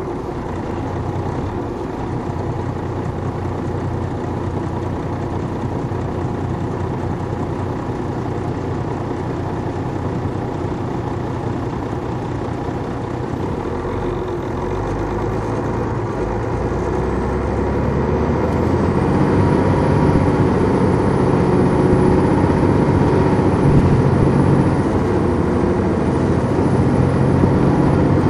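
Detroit Diesel Series 60 diesel engine of a 2002 MCI D4000 coach, heard from on board, running steadily. About two thirds of the way in it grows louder and a thin high whine comes in and holds.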